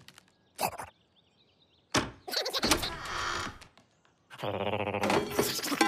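Cartoon slapstick sound effects: a short knock, then a sudden thunk about two seconds in with a second or so of clatter after it. A pitched sound starts near the end.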